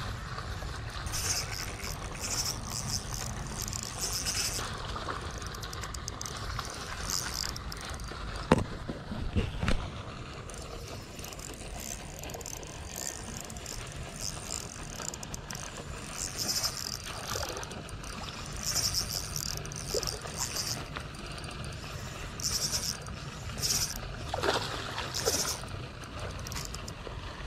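Fishing reel being wound in repeated short spells, a whirring that starts and stops about a dozen times, with two or three sharp knocks about eight to ten seconds in.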